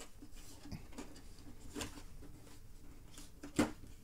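Cardboard packaging being handled and opened by hand: scattered light scrapes and taps, with one sharper click about three and a half seconds in.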